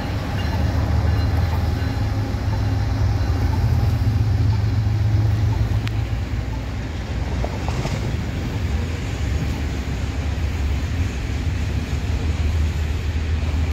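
Steady low engine rumble with a few faint steady tones above it, holding level throughout.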